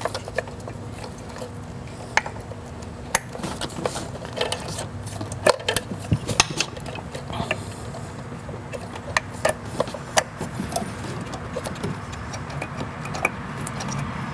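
Irregular small plastic and metal clicks and rattles as spark plug wires and their boots are handled and pushed onto ignition coils, over a steady low hum.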